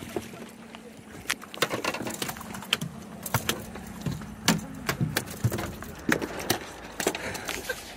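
Irregular knocks, taps and clatter on a fiberglass boat deck as a freshly netted striped bass and the landing net are handled. A low steady hum runs under the first half and then fades.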